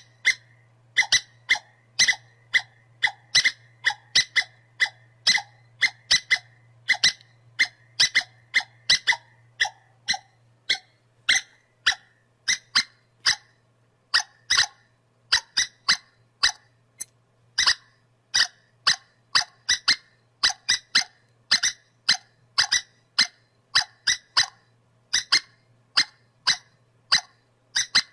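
Squirrel giving a long run of short, sharp, high chirping calls, about two a second with uneven gaps, over a faint steady low hum.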